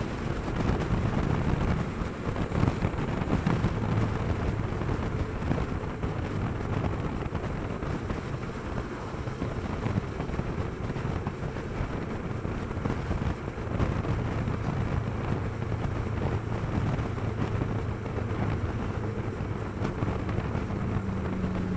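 Wind rushing over the microphone of a moving motorcycle, with the steady drone of the Kawasaki Versys 650's parallel-twin engine beneath it.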